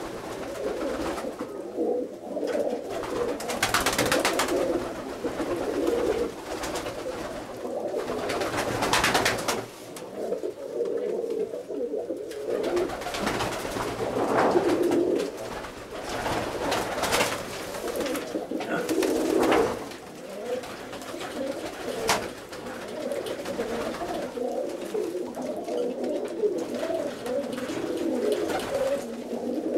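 A flock of domestic roller pigeons cooing together in a small enclosed loft, a continuous overlapping murmur of calls. A few short bursts of rustling break through it, the loudest about 4, 9 and 17 seconds in.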